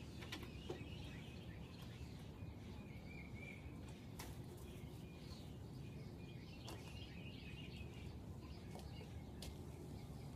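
Faint high chirping and twittering over a steady low background rumble, with a few sharp clicks.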